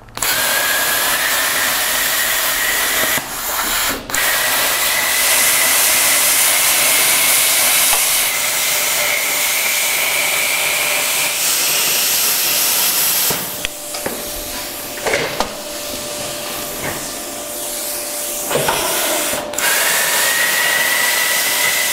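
Handheld plasma cutter cutting a rolled thin-gauge steel tube: a loud, steady hiss of air and arc with a high whine that rises slightly in pitch. It breaks off briefly around three to four seconds in, goes quieter with a few clicks from about thirteen to nineteen seconds in, then the full cutting hiss and whine return.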